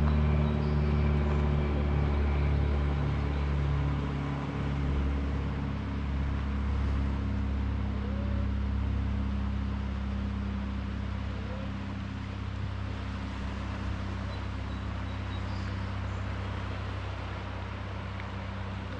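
A motor vehicle's engine running steadily, with a low even hum that gradually grows fainter, over a constant hiss of surf and wind.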